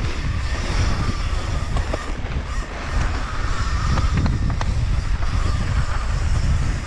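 Wind buffeting the camera microphone on a fast mountain-bike descent, with the tyres sliding and crunching on loose, dusty dirt and the bike rattling over the bumps, a few sharp clicks among it.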